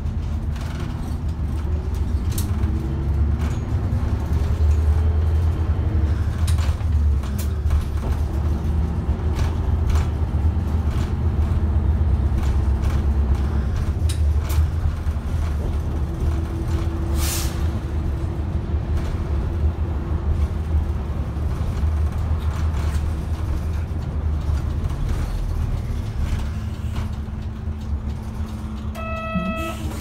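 Diesel engine of a city route bus heard from inside the cabin, running with a low rumble and rising in pitch as it pulls away in the first few seconds, then idling in a queue. A sharp hiss of air from the air brakes comes about 17 seconds in, and a short ringing tone sounds near the end.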